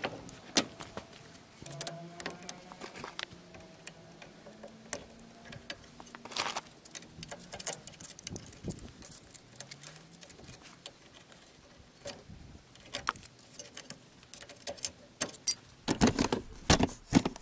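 Scattered metallic clicks and taps of a screwdriver and pliers working at a car's front disc brake caliper, prying at the pads' retaining pins and cotter pins to remove the brake pads. A few louder knocks come near the end.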